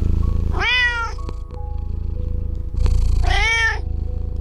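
An animal calling twice, each a short pitched call that rises and falls, over background music.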